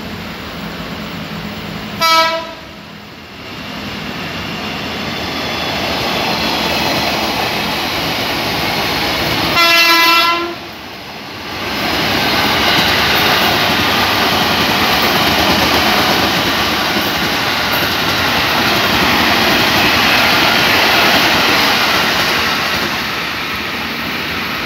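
Electric commuter train sounding its horn twice, a short blast about two seconds in and a longer one about ten seconds in, then passing close by. The rushing noise of the train going past swells about twelve seconds in and holds until near the end.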